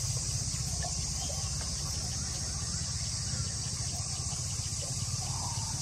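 Insects chirring steadily in a high band over a low, steady engine-like hum.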